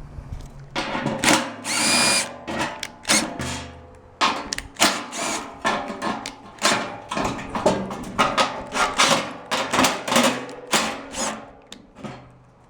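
Blower assembly being pulled apart with a drill-driven gear puller: repeated irregular clanks and knocks of metal parts, with a brief drill whine about two seconds in. The sound dies down near the end.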